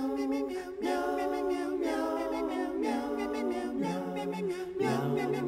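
A cappella vocal music: several voices singing held chords in close harmony, each chord about a second long with short breaks between, the lowest voice dropping lower near the end.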